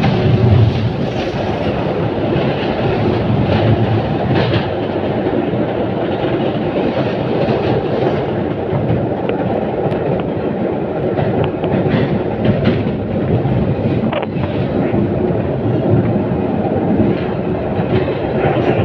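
LVS-86K articulated tram running along the track at speed, heard through an open window vent: a steady rolling rumble of wheels on rails with scattered short clicks.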